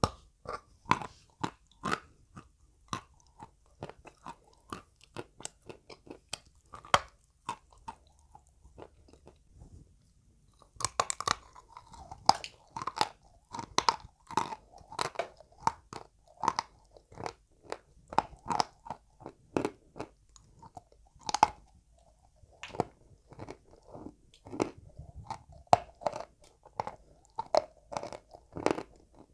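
Dry white chalk being bitten and chewed: a sharp crunch of a bite at the start, scattered crunches for the first ten seconds, then denser crunchy chewing with a few louder bites.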